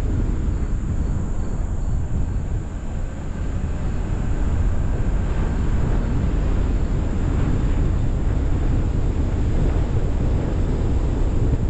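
Wind rushing over a roof-mounted camera's microphone as the car drives along, mixed with the car's road noise: a loud, steady low rumble.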